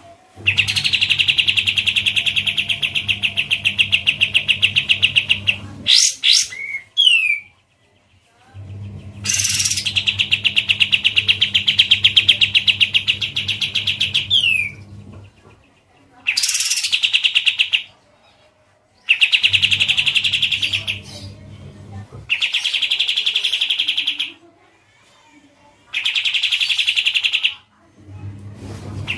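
A songbird singing a fast, rapidly pulsed trill in repeated bursts a few seconds long, with short gaps and a few quick whistled sweeps between them. A low hum sits under the longer bursts.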